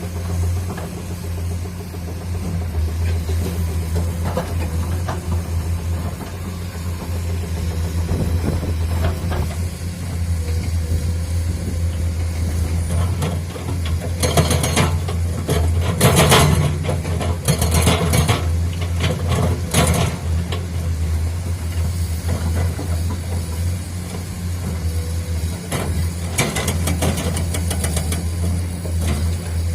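Diesel engine of heavy earthmoving equipment running steadily with a low hum. About halfway through, and again near the end, spells of rapid clattering impacts break in.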